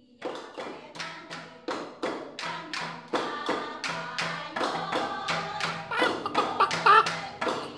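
Instrumental music with a steady beat of about three strikes a second over a pulsing bass line, starting a quarter second in and growing louder toward the end.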